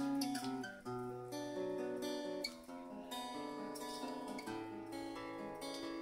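Crafter acoustic guitar played alone, chords ringing out and changing every second or so, with no singing: the instrumental introduction of the song.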